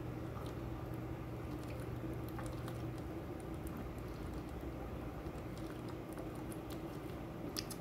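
A man gulping malt liquor straight from a 40-ounce glass bottle in one long swig: faint swallowing clicks over a steady low hum.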